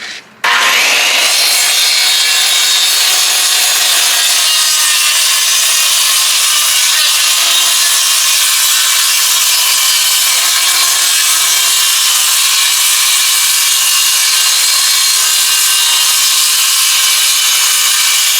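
Power saw running and cutting through wood with a steady, loud rasping noise that starts suddenly about half a second in. The blade is dull.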